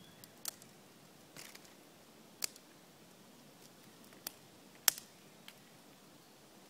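Small dry twigs snapping as they are broken by hand into kindling: about six separate sharp snaps, the loudest about five seconds in.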